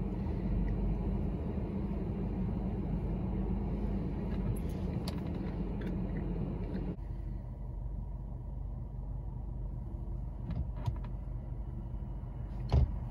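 Steady low hum of a car idling, heard inside the cabin. It drops abruptly about seven seconds in. A few faint clicks and one short sharp knock come near the end.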